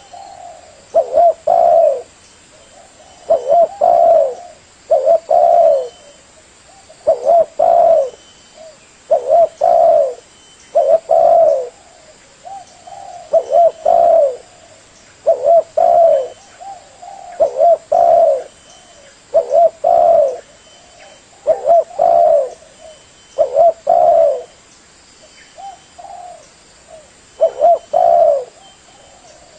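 Spotted dove (tekukur) cooing: phrases of a few short coo notes repeated about every two seconds, with a longer pause near the end.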